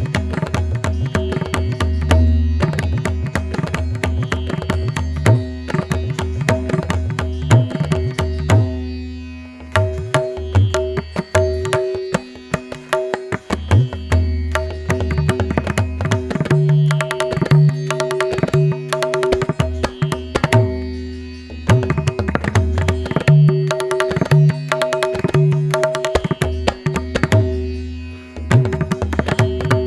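Devotional Indian music: tabla playing a quick, steady rhythm over sustained held notes, with a deep bass that drops out for short stretches.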